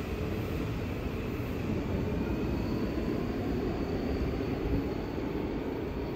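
Hanshin 5700 series electric commuter train pulling out of the station and away over the rails: a steady rumble of wheels and running gear, with a faint whine that rises slowly as it gathers speed.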